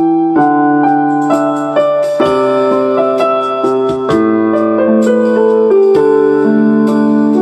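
Slow keyboard music: sustained piano chords changing about once a second.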